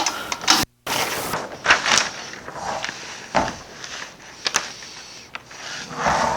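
Irregular rustling of paper and light knocks as things are handled on a workbench, with a brief total dropout a little under a second in.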